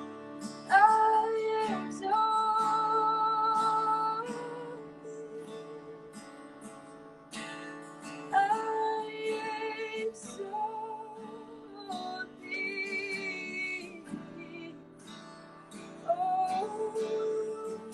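A woman singing long held phrases over a strummed acoustic guitar.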